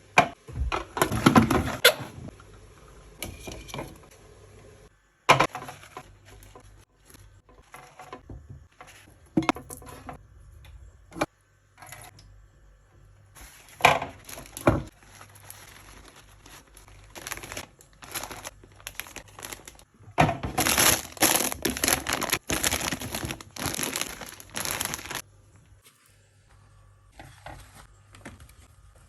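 Kitchen handling sounds: plastic bags and packaging crinkling, with knocks and clatter of containers, in irregular bursts that are busiest about twenty to twenty-five seconds in.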